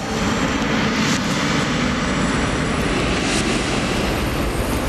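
Jet airliner's engines running: a loud, steady rush of engine noise that cuts in suddenly.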